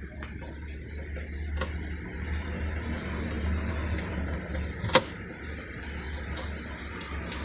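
A steady low hum with a few light clicks and one sharp knock about five seconds in.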